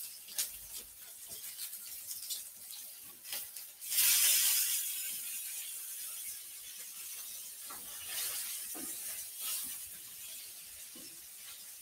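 Sesame-crumbed chicken tenders frying in a pan: a sudden burst of sizzling about four seconds in that dies down to a steady, quieter sizzle, with light clicks and knocks of a utensil against the pan.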